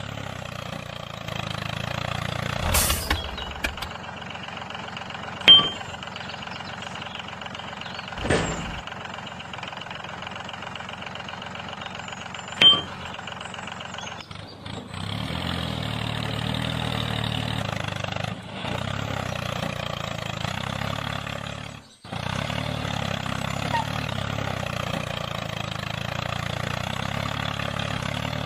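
Tractor engine running steadily, with a few sharp clicks in the first half. It runs a little louder from about halfway and cuts out for an instant about three quarters of the way in.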